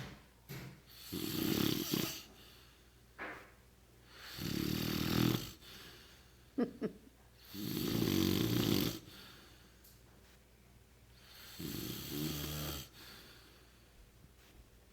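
A man snoring heavily in his sleep: four long snores about every three to four seconds, with quieter breathing between them and a brief sharp noise between the second and third. The snoring is bad enough that the person filming says he needs a CPAP machine.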